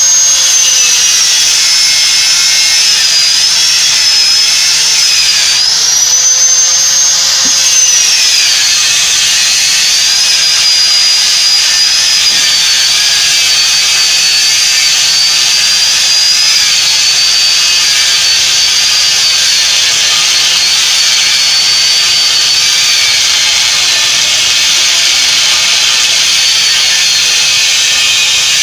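Electric power tool running under load: a loud, steady hiss with a high whine that dips and wanders in pitch as the tool is pressed.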